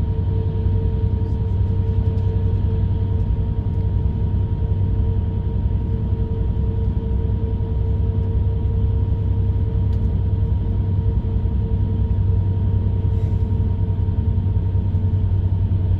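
Inside a moving bus: a steady low engine and road rumble, with a constant mid-pitched hum above it.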